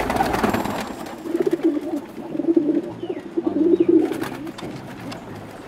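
Domestic pigeons cooing in a loft, a few low warbling coos one after another.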